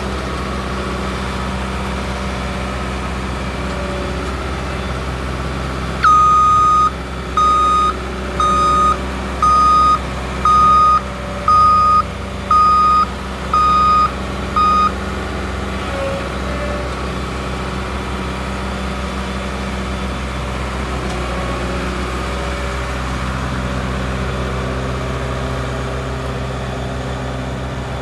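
Ingersoll Rand SD-70D vibratory smooth-drum roller's diesel engine running steadily as the machine is driven. About a fifth of the way in, a backup alarm starts a string of nine loud beeps, roughly one a second, that stop about halfway through while the engine runs on.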